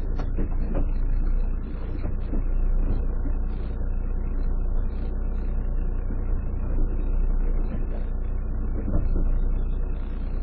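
A small fishing boat's engine running steadily, a low rumble heard from on board, with a few light knocks.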